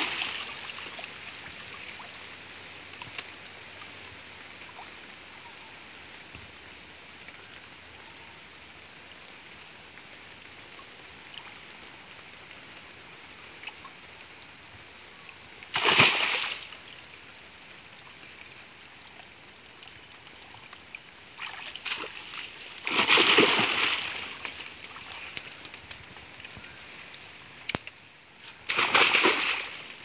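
Splashing and sloshing in shallow river water as a cast net is dipped and shaken at the bank, in separate bursts: one at the start, one about halfway, a longer one about two-thirds in, and one near the end. A faint steady murmur of flowing water lies between them.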